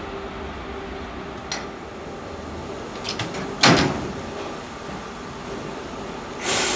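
Harz narrow-gauge 2-10-2 tank steam locomotive 99 7238-1 standing on a turntable. A few metallic clicks, then one sharp knock about midway, over a steady low hum. Steam starts hissing out loudly near the end.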